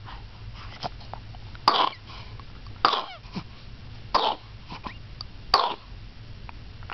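A person coughing: four single coughs a little over a second apart, with a few fainter coughs between them.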